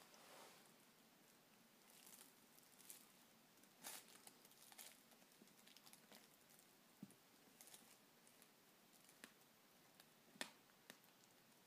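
Near silence, broken by faint scattered rustles and soft clicks, the sharpest about four seconds in and again near the end.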